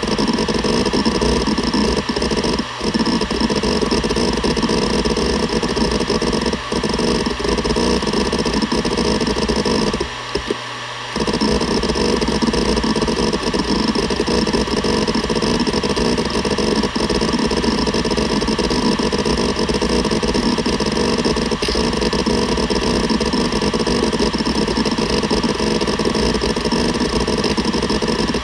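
Seagate Barracuda ES.2 ST31000340NS 7200 rpm enterprise hard drive running under close microphone. Its head actuator clatters with rapid seeks over the steady spindle whine, with a short lull about ten seconds in.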